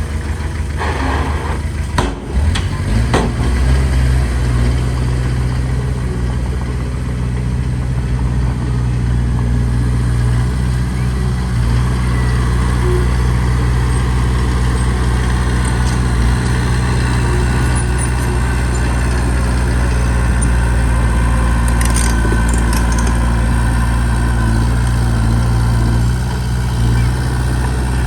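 Heavy diesel engine of earthmoving machinery running steadily with a deep, even drone. A few sharp knocks come in the first three seconds.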